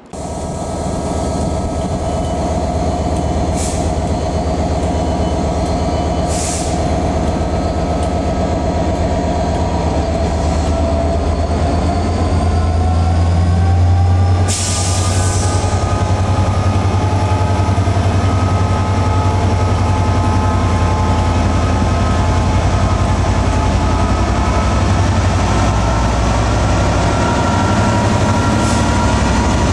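Class 67 diesel-electric locomotive, with a two-stroke V12 diesel, hauling passenger coaches slowly past along the platform. Its engine drones low, loudest about halfway as it draws level. Steady high squealing and a few short hisses sound over the drone, the largest hiss coming about halfway.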